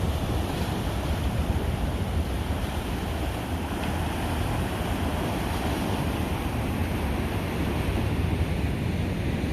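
Steady ocean surf on a rocky shore, mixed with wind rumbling on the microphone.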